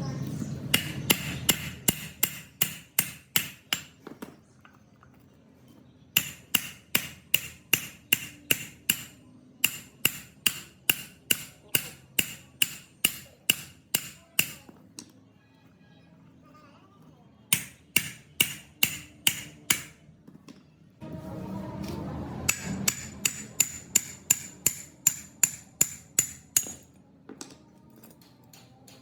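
Hammer blows on steel, struck in quick runs of about three to four a second with pauses between the runs. Each blow has a bright, clear metallic ring.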